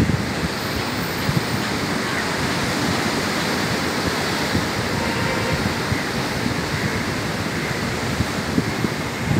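Wind buffeting the microphone in irregular low gusts over a steady wash of surf breaking on a sandy beach.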